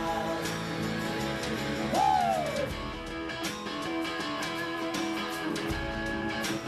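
Live band music led by a strummed acoustic guitar, with no singing. A short, louder falling tone cuts in about two seconds in.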